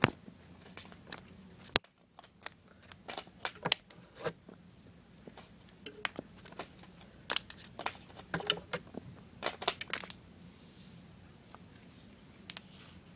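Scattered light clicks, taps and rustles of small objects being handled, with one sharp loud click about two seconds in and quick runs of clicks near eight and ten seconds.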